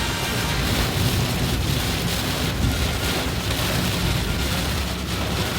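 Heavy rain pouring down on a car, a dense steady hiss, with a low rumble of engine and road noise underneath.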